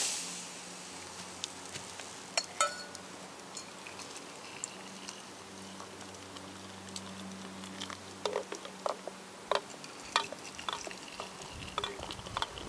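Freshly boiled water poured from a kettle into enamel mugs, then the scattered clinks of a metal spoon stirring a drink in an enamel mug, with a second pour near the end.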